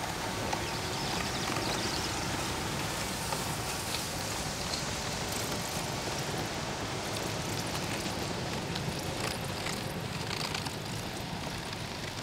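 Electric snowmobiles driving over snow: a steady hiss and crackle of tracks and skis on snow, with no engine note.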